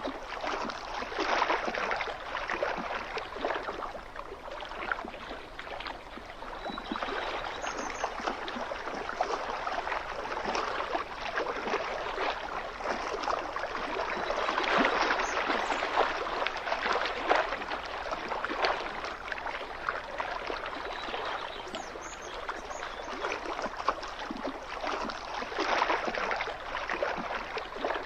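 Small waves lapping and splashing against a lakeshore, a steady wash that swells and eases every few seconds.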